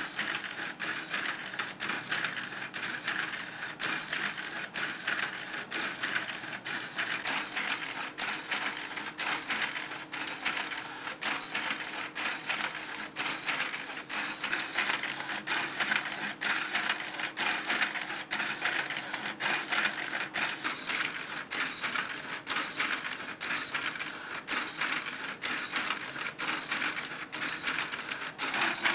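LEGO Technic and Mindstorms RCX model of a CAMCO Cambot handling machine running: small electric motors driving plastic gears and linkages, with a steady rapid clatter of clicks throughout.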